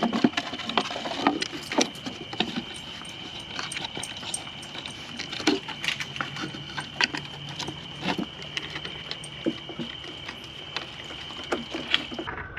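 Irregular clicks, knocks and rattles of raccoons handling treat-filled dog toys and food, several a second, over a steady high-pitched tone.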